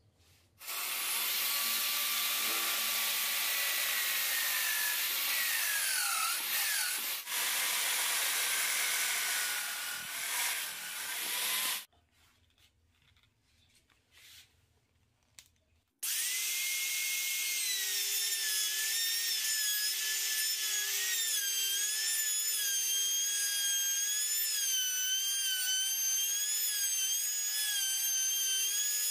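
Handheld trim router running and cutting into wood in two long passes, with a pause of about four seconds between them. The motor's high whine wavers and dips as the bit bites into the wood.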